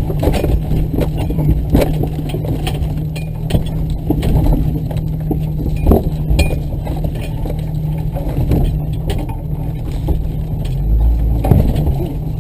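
Off-road vehicle driving over rough ground: a steady engine drone with frequent knocks, clinks and rattles as the vehicle jolts.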